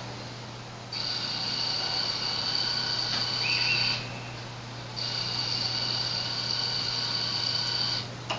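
Arduino PWM-driven DC motor of a timelapse camera dolly running in two bursts of about three seconds each with a high-pitched whine, stopping for about a second in between.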